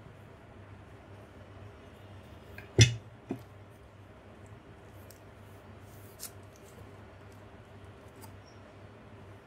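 Metal garden hand tools knocking against each other in a cardboard box as they are handled: one sharp knock about three seconds in, a smaller one just after, and a faint one about six seconds in, over a low steady hum.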